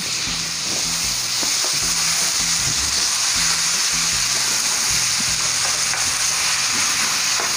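Chopped tomatoes sizzling in hot oil in a nonstick kadai with onions, garlic and spices, as they are stirred and sautéed with a spatula. The sizzle is a steady hiss, with light scrapes of the spatula.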